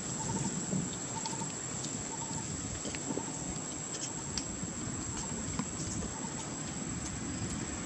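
Outdoor ambience: a steady hiss with a faint high steady tone, a short faint chirp repeating about once a second, and a few soft ticks. There are no monkey cries.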